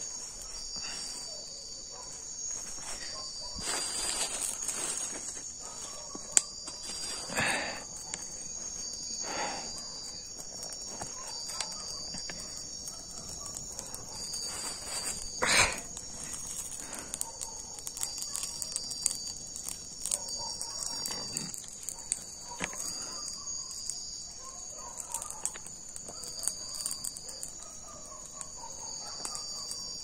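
Night insect chorus of crickets trilling steadily, with a few short rushes of noise and scattered light crackles from a small campfire of wet leaves and sticks as it catches.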